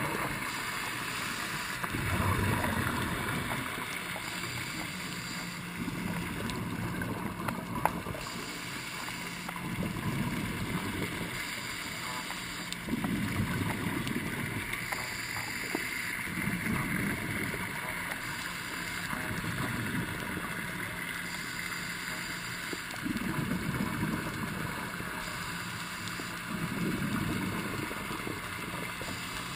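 Scuba breathing underwater: exhaled bubbles from a regulator rumble in bursts every few seconds, over a steady low hum.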